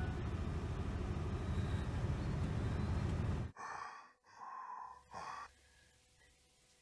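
Car engine running, a steady low rumble heard from inside the cabin, which cuts off abruptly about three and a half seconds in. It is followed by three short, hard breaths over the next two seconds.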